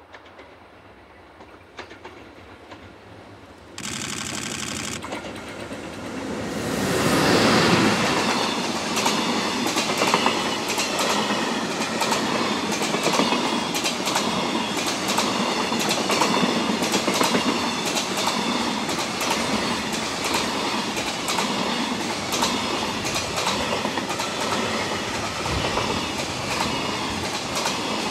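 EH500 electric locomotive hauling a long container freight train past at speed. A brief horn sounds about four seconds in, the locomotive goes by loudest a few seconds later, and then the container wagons roll past with a steady rumble and a rhythmic clickety-clack of wheels over rail joints. The sound starts to fade as the last wagon clears near the end.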